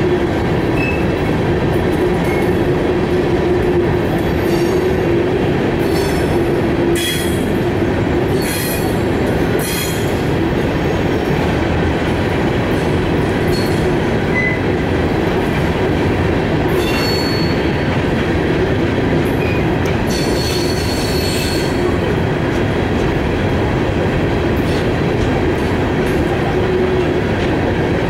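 Empty rock gondola cars of a freight train rolling past: a steady rumble of steel wheels on rail, broken several times by brief high-pitched wheel squeals.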